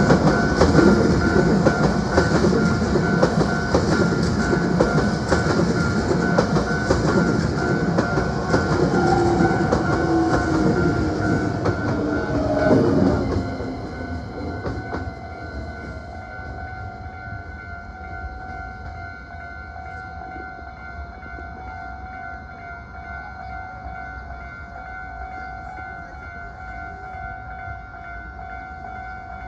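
Hankyu 9300 series eight-car train passing close by, its wheels clattering over the rail joints, with a short whine about ten seconds in; the noise drops away about 13 seconds in. A steady, repeating ringing tone carries on throughout.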